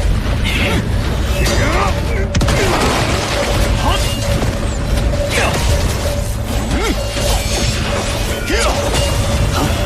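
Dense animated-battle sound effects layered over music: a continuous low rumble with many short swooping sweeps and a steady held tone throughout.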